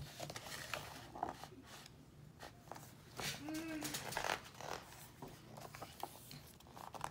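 Pages of a hardcover picture book being turned and pressed flat by hand: a series of short paper rustles and swishes.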